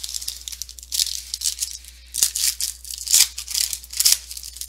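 Foil wrapper of a 2015 Topps Fire football card pack crinkling and tearing as it is pulled open by hand, in a run of crackly rustles, the loudest about two to four seconds in.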